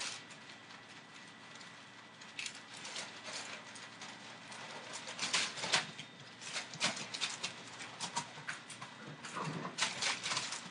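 Entlebucher Mountain Dog puppies scuffling about, their paws and claws making quick, irregular taps and scrapes that grow busier about halfway through.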